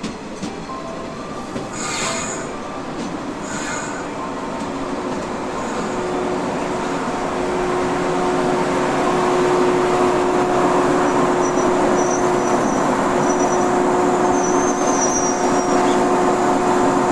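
Electric train pulling into the station, its running noise growing steadily louder, with a steady brake squeal setting in about five seconds in and holding. Two brief high-pitched sounds come in the first four seconds.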